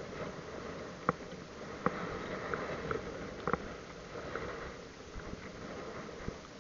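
Steady rushing wind, with a few sharp clicks and knocks scattered through it.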